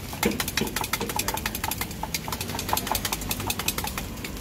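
Thai-style omelette frying in a wok of very hot oil, the oil crackling and popping in rapid, irregular sharp pops, over a low steady rumble.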